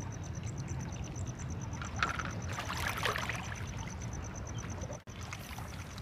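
Water splashing and trickling for about a second, starting around two seconds in. Under it runs an insect's fast, even, high-pitched chirping.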